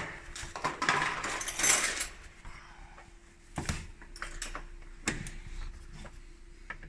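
Hands handling the plastic cowl panel and rubber seal under a car's windscreen. There is rustling and scraping for the first couple of seconds, then a few sharp separate clicks and taps.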